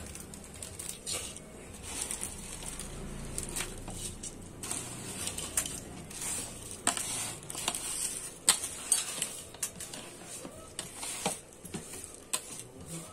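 Dry noodles being tipped and pushed off a plate into boiling water in an open pressure cooker: a run of irregular clicks, taps and rustles as the plate knocks the pot and the noodles drop in, over the steady bubbling of the water.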